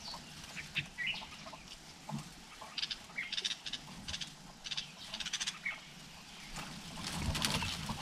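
Dry leaves and stems crackling and rustling in short clusters of ticks as a greater coucal moves through the leaves at the nest, with a few brief chirps from a bird.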